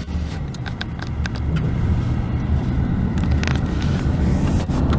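Vehicle driving on a dusty dirt back road, heard from inside the cabin: steady low engine and road rumble with scattered short clicks and ticks.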